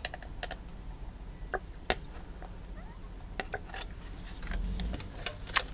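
Scattered light clicks and taps of plastic cups and a bottle being handled, with a brief soft rustle about four and a half seconds in.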